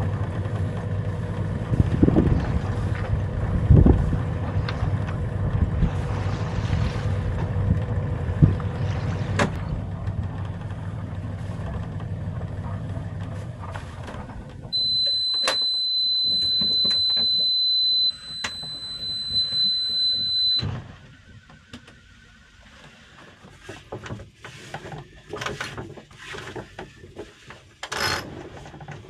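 A sailing yacht's inboard engine running steadily, then stopping about halfway through. At that moment a steady high-pitched electronic beep sounds for about six seconds and then cuts off, the engine panel alarm that sounds when an engine is stopped with the key still on. After it come quieter scattered clicks and knocks of a line being worked at a cockpit winch.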